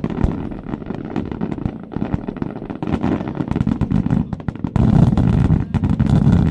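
Aerial fireworks crackling with dense, rapid popping over a low rumble, louder about five seconds in.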